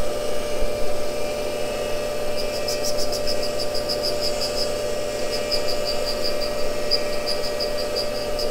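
Cincinnati tool and cutter grinder running with a steady hum while its wheel grinds an end mill. From about two and a half seconds in, a fast light ticking of about six or seven a second comes in as the wheel cuts, throwing sparks.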